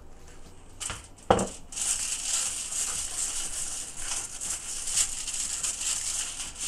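Two sharp clicks about a second in, then aluminium foil lining a baking pan crinkling and rustling steadily as olive oil is rubbed over it by hand.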